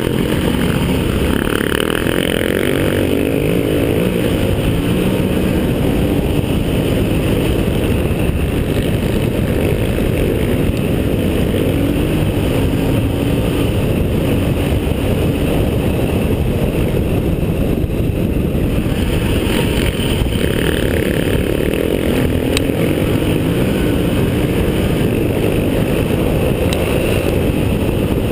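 Enduro motorcycle engine running hard at speed on a dirt track, its pitch climbing and dropping as the revs change, with wind rushing over the microphone.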